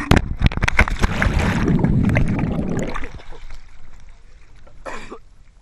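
Water splashing and churning close to the microphone, a rush of sharp slaps and turbulence for about three seconds that then dies away.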